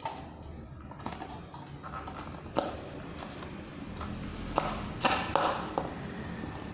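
Hard plastic clicks and knocks as a stand fan's plastic blade hub is handled and pushed onto the motor shaft. Sharp single taps come now and then, with a quick cluster of them about five seconds in.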